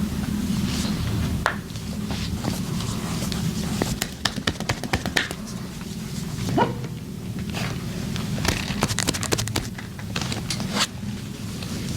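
Chiropractic adjustment: runs of quick, sharp cracking clicks, over a steady low hum, with one short rising whine about halfway through.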